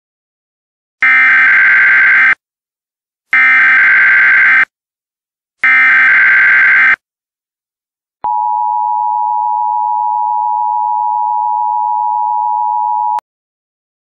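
Emergency Alert System header: three bursts of digital data tones (the SAME header), each a little over a second, then the steady two-tone EAS attention signal held for about five seconds before cutting off sharply.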